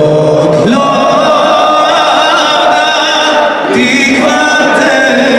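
Large football crowd singing a song together in unison, loud, with long held notes.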